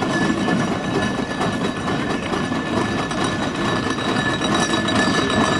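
1916 Wallace & Steevens expansion traction engine driving slowly past, its steam engine and iron-shod wheels making a steady mechanical running noise with a dense clatter.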